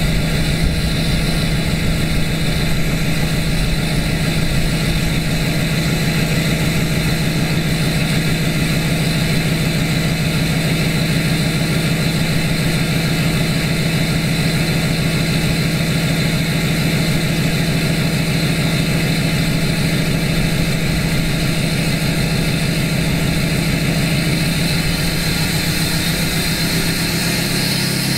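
2012 LML Duramax 6.6-litre V8 turbo-diesel idling cold through a 5-inch straight pipe to an 8-inch axle dump, a loud, steady, fast-pulsing exhaust note. Near the end the idle steps down slightly as the cold engine settles.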